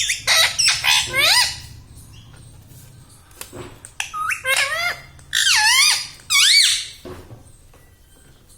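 Ring-necked parrot squawking in a run of sharp, swooping high calls over the first second and a half, then after a short pause another run of calls from about four to seven seconds in.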